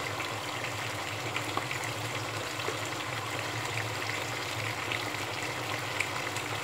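Tomato stew sauce simmering in the pot, a steady, even sizzle and bubble over a low steady hum.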